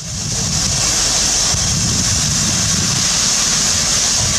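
Soviet P36 4-8-4 steam locomotive running past at close range: a steady high hiss over a continuous low rumble of the engine and its wheels on the rails.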